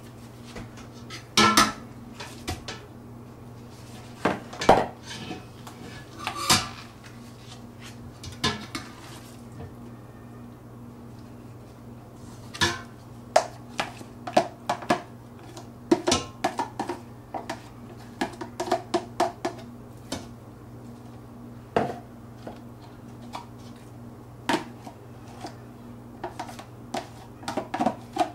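A metal spoon clinking and scraping against a stainless steel stockpot and plastic tubs as ground raw meat is spooned into the pot: irregular knocks and taps, some in quick runs, over a steady low hum.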